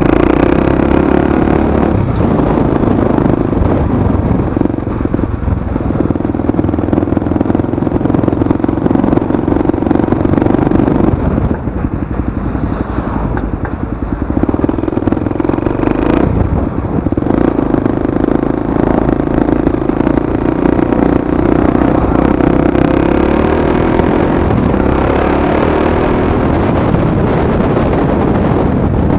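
Honda XR250 Tornado's single-cylinder four-stroke engine running under way through its exhaust. The steady note eases off for a few seconds about eleven seconds in, and briefly again around sixteen seconds, before it picks back up.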